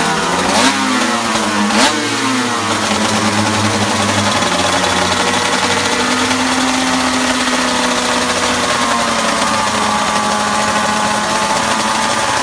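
Suter MMX 500's V4 two-stroke race engine running on the stand, blipped sharply twice in the first two seconds, then held at a steady idle whose pitch rises and falls slightly.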